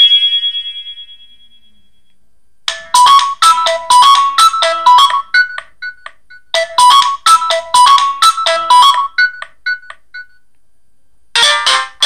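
Preloaded ringtones of an Alcatel OneTouch SpeakEasy phone. A ringtone's last note fades out, and after a short pause a quick melody of short notes plays through twice. Near the end a new, busier ringtone begins.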